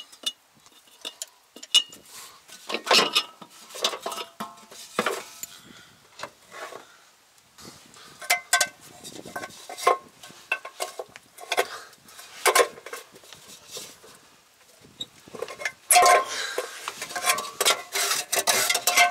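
Irregular metal clinks, knocks and scraping as hands work in a truck's engine bay, lifting the metal air cleaner lid and handling parts around it. A denser, louder stretch of rattling and scraping comes near the end.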